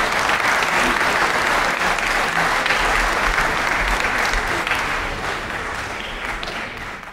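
Audience applauding at the end of an opera duet, the clapping gradually dying down over the last couple of seconds.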